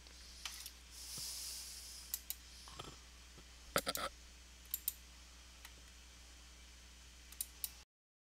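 Computer mouse clicking, a scattering of sharp single and paired clicks over a faint steady electrical hum, with a soft hiss about a second in. The sound cuts off abruptly near the end.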